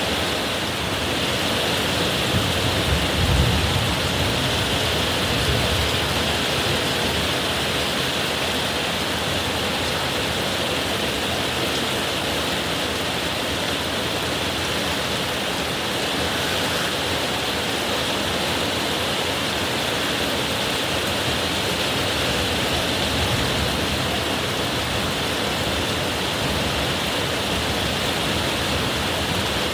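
Heavy rain falling in a steady downpour, with a brief low rumble about three seconds in.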